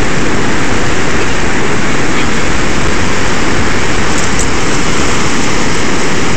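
Loud, steady rushing noise from wind on the microphone, mixed with ocean surf breaking on the beach.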